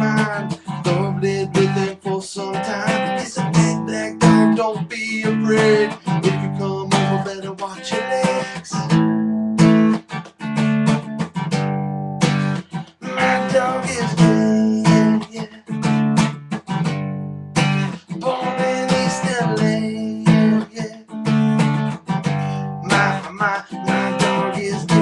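Acoustic guitar strummed in a steady rhythm, moving through repeating chords, with no singing.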